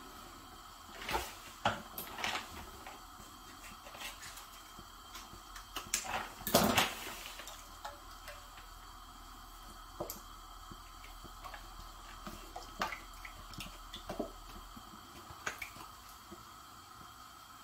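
Kitchen handling sounds as tomato purée goes into a saucepan on the stove: scattered light taps and knocks of a container and utensils, with a louder cluster of knocks about six to seven seconds in.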